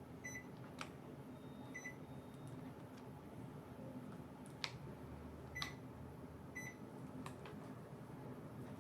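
Panasonic inverter air conditioner beeping briefly four times, the unit's usual acknowledgement of remote-control commands, with a few sharp clicks in between and a faint low hum throughout.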